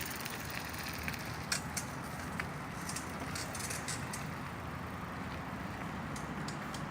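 Steady outdoor background noise with scattered faint clicks and ticks, the loudest about a second and a half in.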